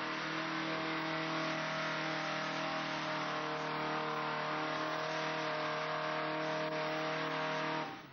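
Super Pro mud-bog truck's engine, on big tractor tyres, running loud at steady revs as it ploughs through the mud pit. The sound cuts off suddenly near the end.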